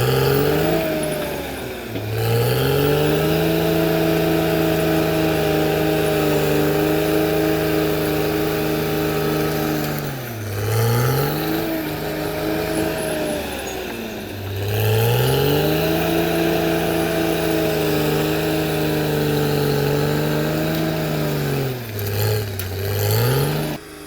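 CAT D6R XL bulldozer's diesel engine running hard at high revs, its pitch sagging and recovering several times.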